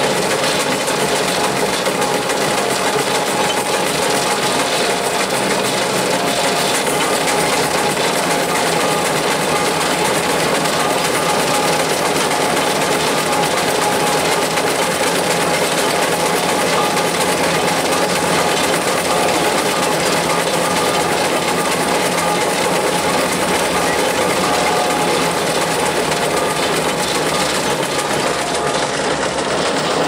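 1915 Fowler K7 steam ploughing engine running fast and working hard as it winds its cable to haul the plough. A steady, loud mechanical clatter of the motion and exhaust, without a break.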